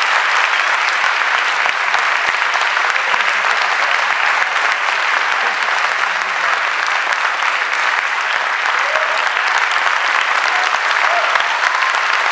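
Audience applauding steadily at the end of a concert performance, with a few voices calling out near the end.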